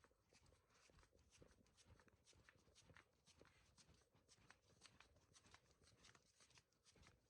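Near silence: room tone with faint, irregular ticking clicks.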